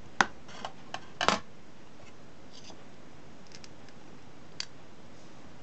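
Small metal parts and an aluminium heatsink plate being handled while a transistor is fitted: sharp clicks and taps, the loudest a quarter second in, a quick cluster about a second in, and one more near the end.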